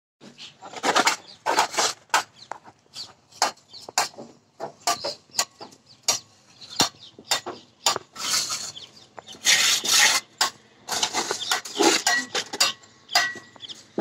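Steel mason's trowel scraping and clinking on wet cement mortar along the top of a brick wall, in many short, uneven strokes with a few longer scrapes.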